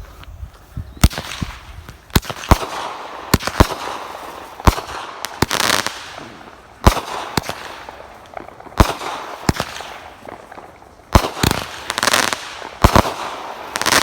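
Nine-shot consumer firework cake (Phantom Fireworks Glittering Charms) firing: a string of sharp launch thumps and loud bangs a second or so apart, with crackling between the shots.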